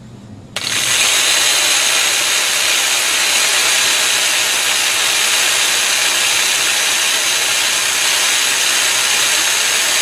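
Corded jigsaw rated at 2.2 amps switched on about half a second in, then running steadily with no load at full speed, a high steady whine over the motor and blade noise. It runs off a 300-watt pure sine wave portable power station, drawing about 70 to 80 watts.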